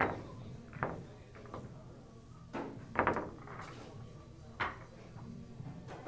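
Pool balls clacking against each other and the triangle rack as they are gathered and pushed tight for the break: a scattered series of sharp clicks, with a quick flurry about three seconds in.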